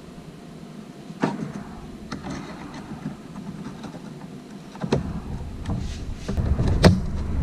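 Scattered clicks and light knocks of a drill bit being set by hand into a freshly drilled hole in a fiberglass rocket body tube, as a locating pin in the drilling jig. A low rumble of handling comes in about five seconds in.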